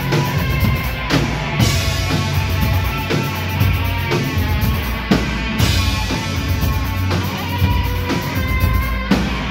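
Darkwave/post-punk band playing live: electric guitar strummed over a steady drum beat.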